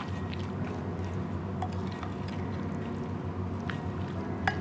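Raw mutton liver pieces coated in spice paste being stirred with a plastic spoon in a glass bowl: soft wet squelching with a few light clicks of the spoon against the glass, over a steady low hum.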